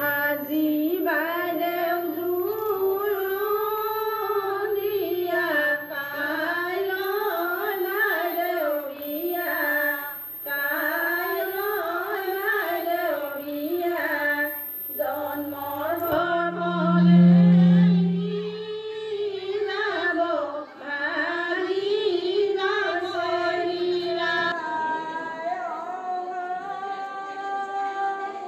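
A group of women singing one melody together without instruments: a traditional Assamese wedding song (biya naam), picked up through microphones. About halfway through, a loud low hum swells for a couple of seconds and fades.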